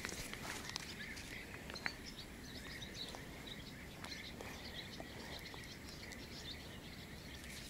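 Faint outdoor ambience: a steady high insect hum with scattered bird chirps and small ticks throughout.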